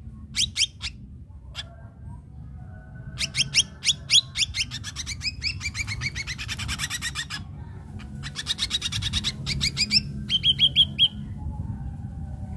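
Ashy drongo singing in loud bursts of rapid, sharp repeated notes: a short burst at the start, a run of about four seconds whose notes fall in pitch, another run near the end, and a quick series of even notes to finish.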